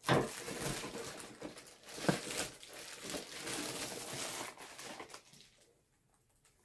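Packaging crinkling and rustling as a reel box is taken out and handled, with a few sharper crackles, dying away about five seconds in.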